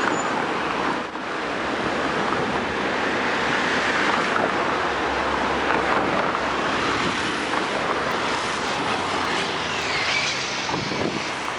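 Steady urban traffic noise: a continuous wash of many vehicles' engines and tyres on the road.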